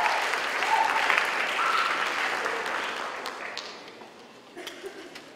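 Audience applauding, with a few shouts and whoops over the clapping, the applause dying away over about four seconds.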